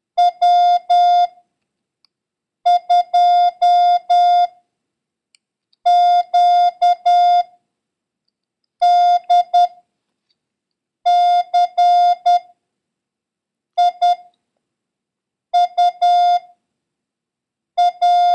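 Morse code practice tone: a steady, mid-pitched beep keyed into short dits and longer dahs. It forms single characters separated by gaps of a second or more, eight in all, as a random run of letters and numbers for copying practice that features the letter Q.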